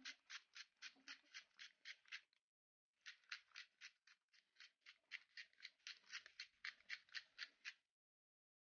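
Hand-twisted pepper mill grinding black pepper: a faint, even run of grinding strokes, about five a second, in two bursts with a short break between them.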